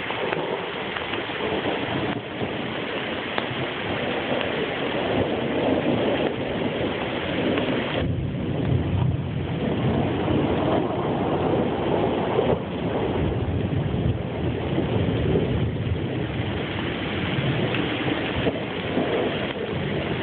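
Rain falling steadily in a thunderstorm, with a low rumble of thunder building about eight seconds in and rolling on.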